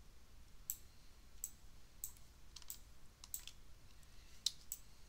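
A dozen or so faint, short clicks at irregular intervals, made by computer input while operating the software.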